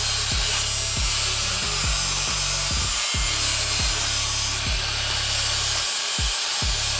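Angle grinder with a cut-off wheel grinding through a steel exhaust pipe, a steady high hiss with a thin whine, under background music with a heavy bass beat.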